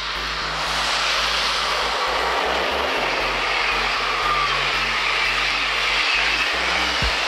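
Electric passenger train running past, with a steady rushing noise of wheels on the rails.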